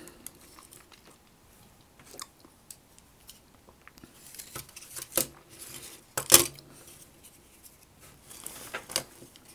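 Light clicks, taps and rustling of hands handling and fitting together the bare metal chassis and mechanism of a MiniDisc Walkman, with one sharper click about six seconds in.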